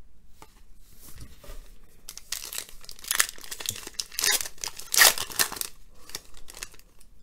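Foil wrapper of a Panini Certified basketball card pack being torn open and crinkled by hand. A run of rustling rips is loudest about five seconds in, after quieter handling at the start.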